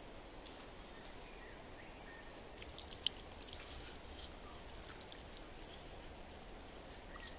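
Water from a garden hose trickling and dripping into a plant pot, faint, with a cluster of louder splashes about three seconds in.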